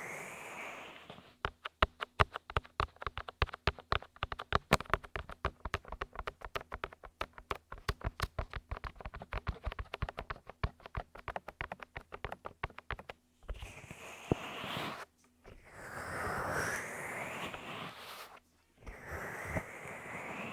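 Close-up ASMR clicks and taps on a binaural dummy-head microphone, an irregular run of several a second lasting about twelve seconds. After that come stretches of soft breathy rushing sound.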